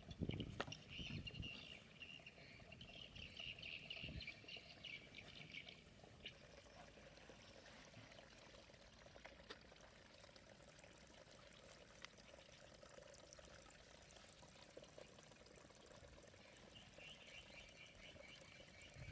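Faint pulsing chirping calls of small animals, in two spells: for the first few seconds and again near the end. A few low knocks come near the start, over a quiet outdoor background.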